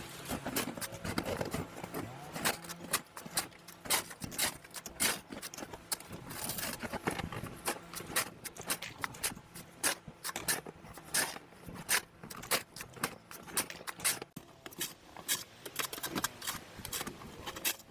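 Snow shovel scraping and crunching through light, fluffy snow, with footsteps crunching in it: irregular sharp crunches and scrapes, one or two a second, over a faint steady hum.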